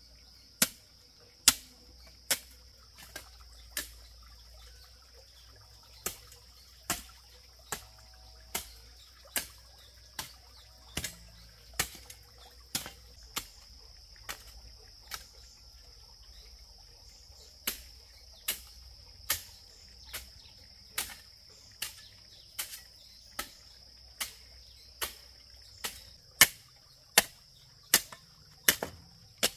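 A hand tool striking over and over in a steady working rhythm, about one stroke every 0.8 seconds, pausing briefly twice. A steady high-pitched insect drone runs underneath.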